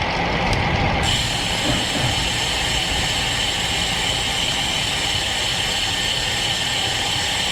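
Steady wind and road noise on a bike-mounted GoPro microphone while a road bike is ridden. A high hiss gets louder suddenly about a second in and then holds steady.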